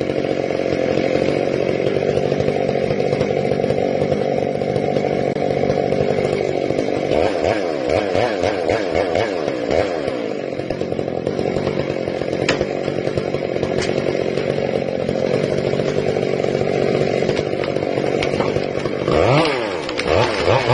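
Two-stroke chainsaw running under load while cutting into a tree, its engine pitch rising and falling several times as it revs. Two sharp cracks come through midway.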